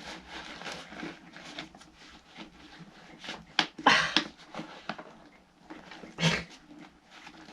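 Hands wrestling a replacement dust bag onto a vintage Hoover upright vacuum cleaner: irregular rustling of the bag and knocks and clicks of the bag fittings, louder about four seconds in and again near six seconds.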